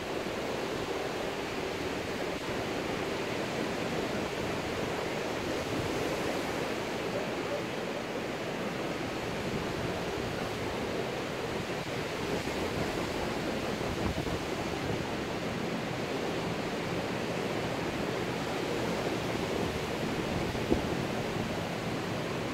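Steady wash of ocean surf breaking on the beach, mixed with wind, with one short tap near the end.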